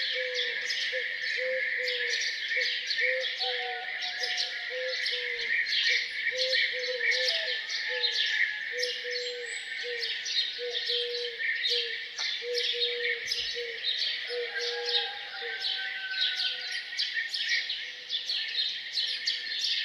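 A dawn chorus of many songbirds chirping and singing at once, over a low hooting note repeated about twice a second that stops about three quarters of the way through.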